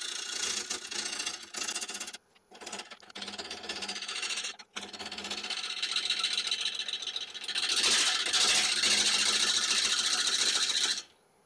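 Gouge cutting into a large yew bowl blank spinning slowly on a wood lathe, with two short breaks in the cutting. The cut grows louder and brighter in the last few seconds, then stops suddenly just before the end.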